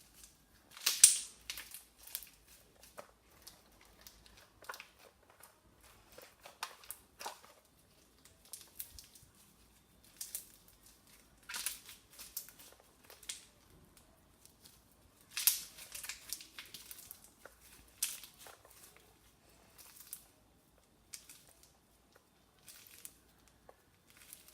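Crunchy slime being squeezed and poked by hand, giving irregular crackling and crunching bursts, loudest about a second in and again about two thirds of the way through.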